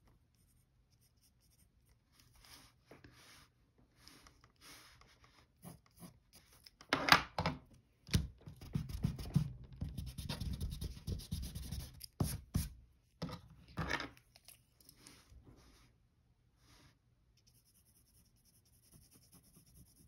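Mechanical pencil scratching on paper in light, separate strokes. In the middle comes a louder, denser stretch of a hand rubbing and shifting against the paper sheet, then a few more pencil strokes, which grow faint near the end.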